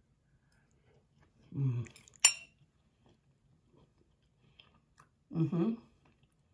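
A fork clinks once, sharply, against a plate about two seconds in. Two short wordless hums come before and after it, the first just before the clink and the second near the end.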